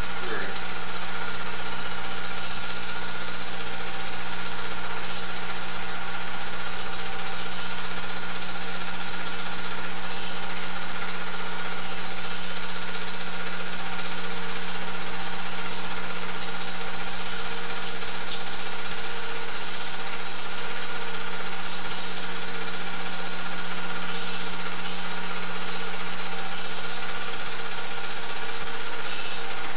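Super 8 film projector running: a steady motor-and-fan hum with a faint high whine over it.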